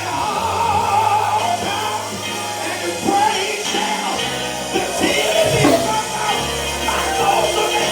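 Live gospel praise music from a church band: held bass notes that change every second or two, drum strokes, and voices singing.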